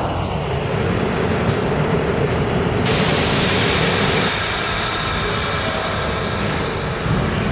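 New York City subway train running through an underground station with a steady rumble of wheels on rails. About three seconds in, a sharp high hiss with several thin high-pitched tones joins the rumble.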